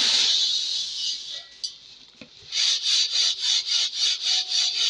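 Dry wheat grains pouring in a steady hissing stream between a cloth sack and a steel bowl. After a short pause, a fast run of rhythmic swishes, about five a second, as the steel bowl of wheat is shaken by hand to clean the grain.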